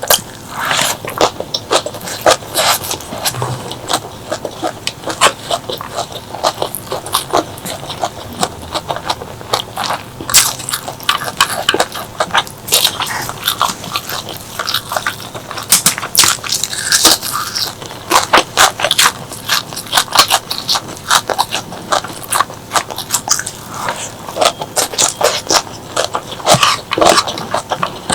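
Close-miked eating sounds: crunchy bites and wet chewing of crisp food, a dense stream of irregular sharp crackles and smacks.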